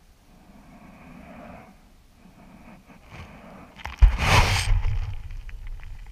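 Coarse sand scooped and brushed by hand right beside the microphone: a loud scraping rush with a deep rumble about four seconds in that tails off over the next second or so, after softer rushing sounds.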